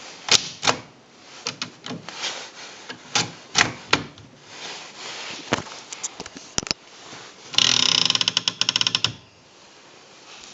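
1930s Smith Premier portable manual typewriter being worked: scattered sharp clacks of its mechanism, then a fast run of clicking lasting about a second and a half near the end.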